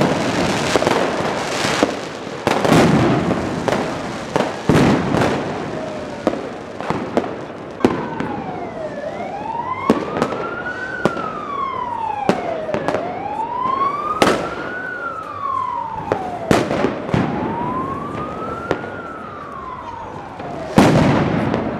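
Fireworks and firecrackers banging repeatedly, densest at the start and again near the end. Through the middle, an emergency vehicle's siren wails slowly up and down, each rise and fall taking about four seconds.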